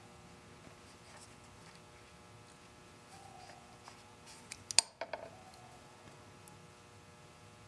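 A few sharp metallic clicks and one snap, close together about five seconds in, from pliers fitting a spring clip onto a small engine's fuel line at the carburetor. Otherwise only faint room noise.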